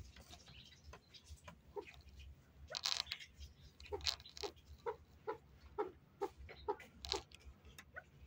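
Caged chukar partridges pecking at grain on the floor: irregular quick taps mixed with short soft clucks.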